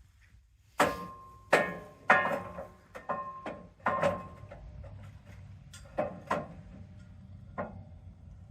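White pine boards knocking together as they are moved and stacked: a run of about nine sharp wooden knocks, each ringing briefly, coming quickly at first, then fewer and softer.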